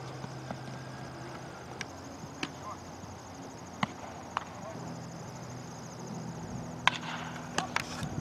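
A baseball bat strikes a pitched ball with a sharp crack about seven seconds in, the loudest sound here. A few quieter single knocks and clicks come every second or two before it, over a faint steady low hum.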